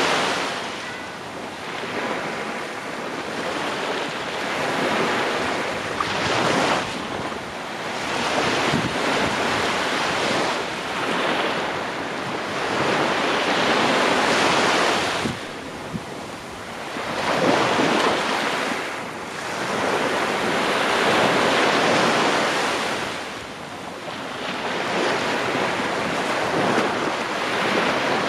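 Small ocean waves breaking and washing up a sandy beach, the surf swelling and falling back every few seconds. Wind buffets the microphone.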